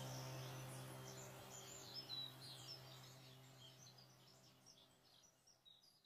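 Birds chirping over a low, steady held musical tone, both fading out to near silence about four seconds in.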